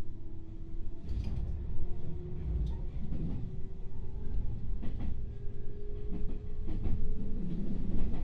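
Onboard running noise of a JR West 221-series electric train, heard inside the motor car: a steady low rumble with a motor and gear whine slowly rising in pitch as the train gains speed. A few wheel knocks over rail joints come about every two seconds.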